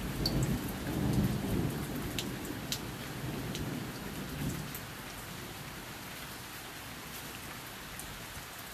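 Thunder rumbling and fading away over the first few seconds, over steady heavy rain, with a few sharp raindrop ticks close by.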